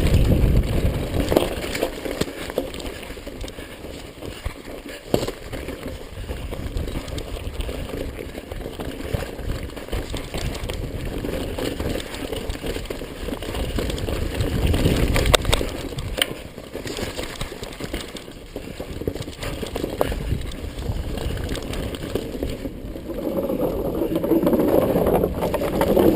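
Mountain bike ridden down a dirt trail: tyres rolling over rough ground with scattered knocks and rattles from the bike over bumps, and wind rushing over the microphone, loudest near the start and again near the end.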